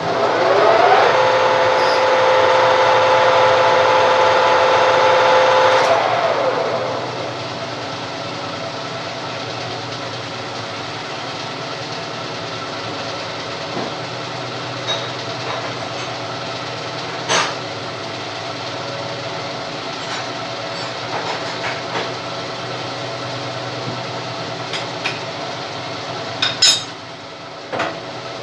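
A lathe's motor spins up with a rising whine and runs steadily for about five seconds during a thread-cutting pass, then winds down. Afterwards a quieter steady hum continues, broken by a few sharp clicks and knocks near the end.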